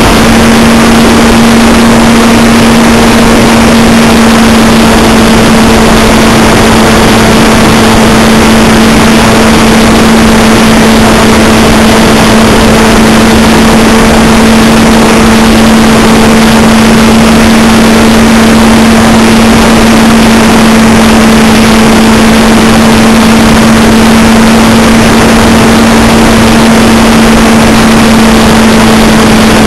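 Electric motor and propeller of a Multiplex Cularis model glider running steadily at one constant pitch, heard loud and close from a camera mounted on the aircraft. A dense rush of wind over the microphone runs under the drone.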